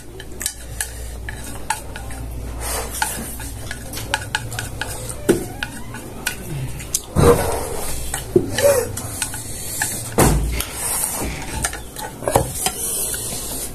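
Spoons and forks clinking and scraping against plates and bowls during a shared meal, a steady scatter of short clicks.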